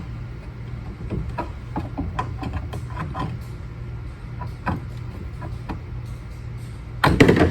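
Scattered light clicks and taps of tools and parts being handled while a bearing is worked loose during a sweeper teardown, over a steady low hum. A louder, denser rattle comes near the end.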